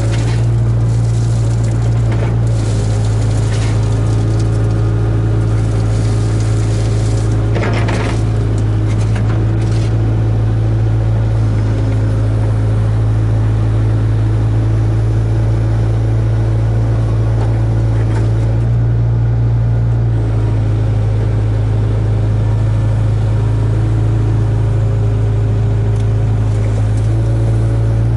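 Hitachi ZAXIS 75UR excavator's diesel engine running steadily under work, heard from inside the cab, with a few brief scraping noises, the loudest about eight seconds in.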